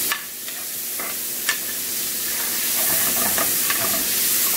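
Diced chicken, onion, bell pepper and tomato sizzling in a stainless steel frying pan over a high gas flame, with a steady hiss. A metal spoon stirring them clinks against the pan a few times, most sharply near the start and about one and a half seconds in.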